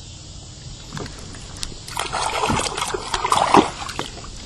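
Water splashing and sloshing close by for about two seconds, starting about two seconds in, mixed with small clicks and knocks.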